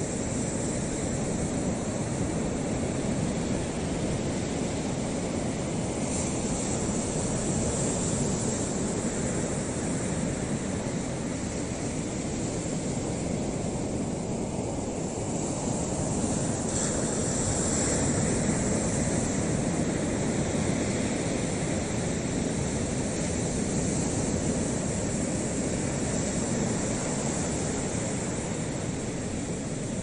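Steady rushing noise of wind and lapping waves on choppy open water.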